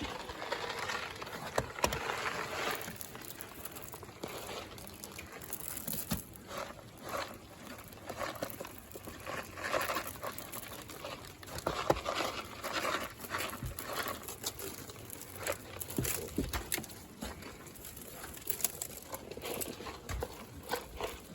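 Irregular pattering and crunching of rock salt being scattered onto snowy steps, with scattered small clicks throughout.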